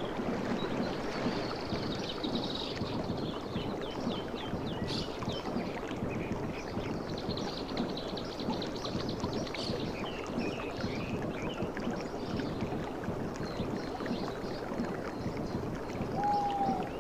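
Sea water washing on a beach in a steady rush, with some faint high chirps at times.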